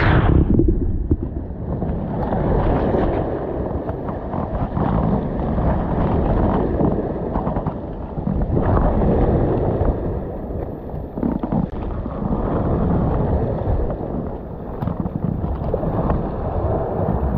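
Wind buffeting the camera microphone as a low, muffled rumble, with water sloshing and slapping around the hull of a capsized inflatable sailing dinghy.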